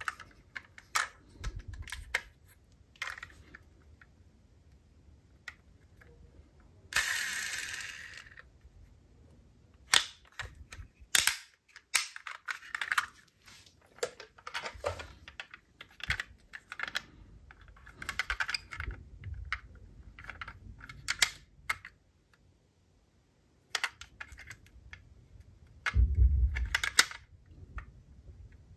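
Small die-cast toy cars being handled and set down, making irregular sharp clicks and clatters. About seven seconds in there is a longer noisy rush lasting a second and a half, and near the end a louder clatter with a thud.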